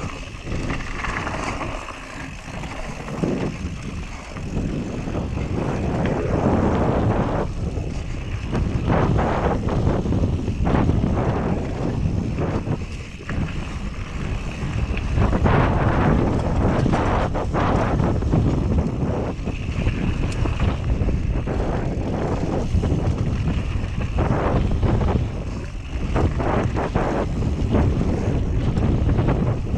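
Whyte G-170S mountain bike descending a dry, loose dirt and gravel trail: wind rushing over the camera microphone, tyres rolling over stones and the bike clattering over bumps, in constantly rising and falling surges.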